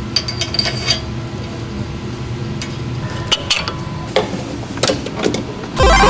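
Small metal car suspension parts clinking and tapping as they are handled, over a steady low hum. Loud music with a heavy, regular beat comes in near the end.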